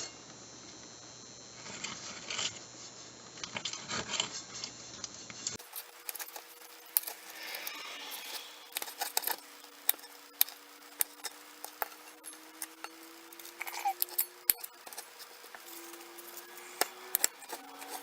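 Raw chicken being cut into small pieces, the blade making a scattered run of light clicks and taps against the cutting surface.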